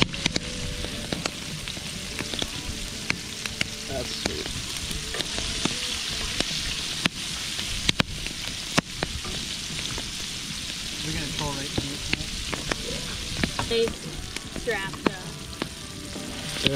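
Food sizzling over a campfire: a steady frying hiss, broken by a few sharp pops.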